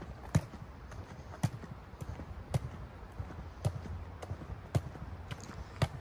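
Footsteps of someone walking on a paved path, one heavier step landing about once a second, over a low steady rumble.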